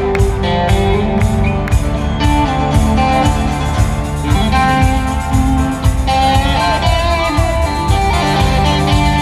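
Live rock band with an electric guitar playing lead lines over drums and bass, heard from far back in a concert audience. The guitar bends some of its notes.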